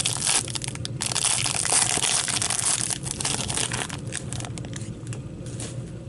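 A trading-card pack wrapper being torn open and crinkled, a dense crackling for about four seconds that thins to a few scattered crackles and clicks as the cards come out.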